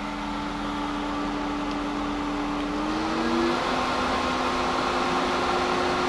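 Hayward Super Pump VS variable-speed pool pump motor ramping up to its top speed of 3200 RPM: a steady hum that grows gradually louder, its pitch rising over about a second and settling about three and a half seconds in.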